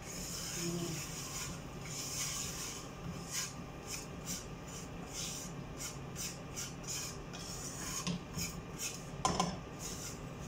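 Wire whisk scraping and stirring browned flour and melted butter in a pan, in quick rhythmic strokes of about three a second, with one louder knock near the end.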